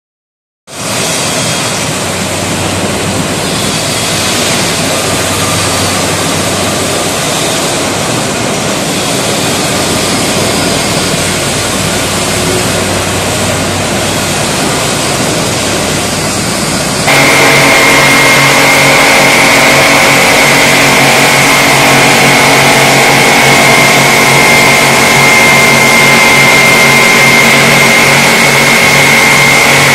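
Automatic tank polishing machine running, its motor-driven polishing wheels grinding along a stainless steel tank shell with a steady noise. A little past halfway the sound abruptly gets louder and a steady high whine joins in.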